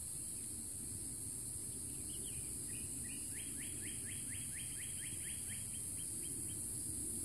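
A bird singing a run of quick rising notes, about four a second, for a few seconds in the middle, over a steady high drone of insects and low outdoor background noise.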